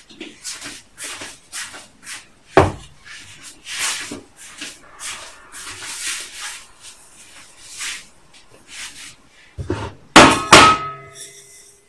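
Kitchen handling noises as jars and containers are fetched and moved: short rustles and light knocks, one sharp knock about two and a half seconds in. Near the end comes a loud clatter with a brief ringing tone as a jar is set down on the counter by a metal bowl.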